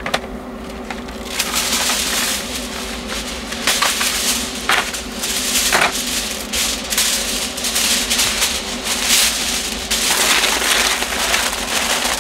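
Aluminium tin foil crinkling and crackling as sheets are folded and crimped over a foil tray to seal it, with a few sharper snaps along the way.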